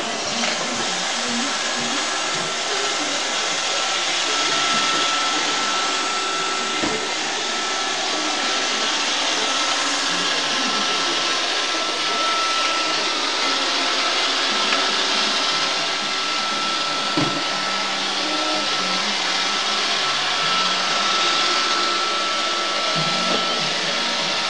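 iRobot Roomba 555 robot vacuum running: a steady rushing noise with a thin, steady whine, and a brief knock twice.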